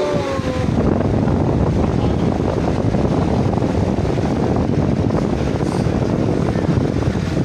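Loud, dense din of a packed crowd of people, steady throughout with no single voice standing out.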